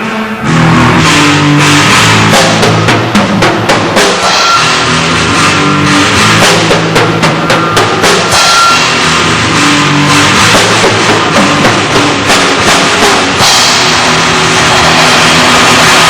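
Live rock band playing loud: a drum kit beating rapidly over held bass and guitar notes. The drum hits are thickest in the middle and give way to held chords near the end.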